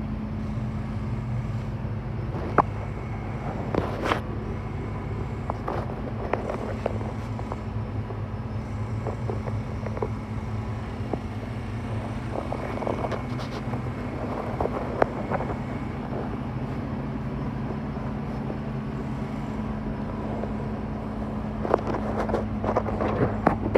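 Doosan DX340 LC tracked excavator's diesel engine running at a steady speed, with scattered knocks and clicks over it.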